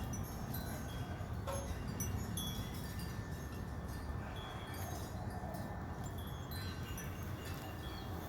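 Wind chimes tinkling, with short clear high notes at different pitches sounding at scattered moments over a steady low rushing noise.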